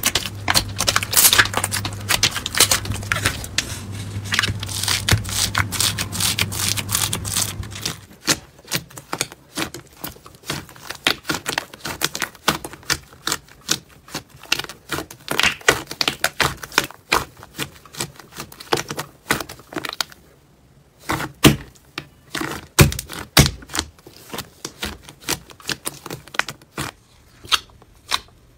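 Hands poking and pressing slime, making crackly clicks and pops. For the first eight seconds or so the clicks come thick and fast over a low hum. After that they are sparser, with a few louder pops past the middle.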